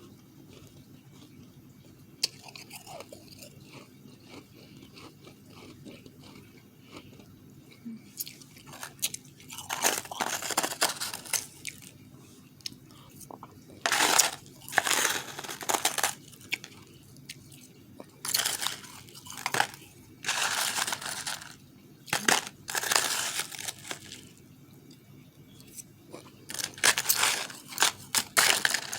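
Refrozen powdery ice being bitten and chewed close to the microphone: loud crunching in bursts of a second or more with short pauses between, starting after a quieter first few seconds.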